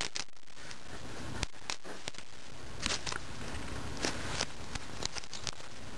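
Clear plastic packaging of an iPod Touch being handled and pulled open by hand: scattered light clicks and short crinkling rustles, the clearest about three seconds in and again around four seconds in.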